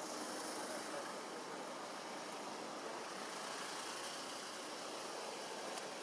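Steady outdoor background noise: an even hiss with no distinct calls or events.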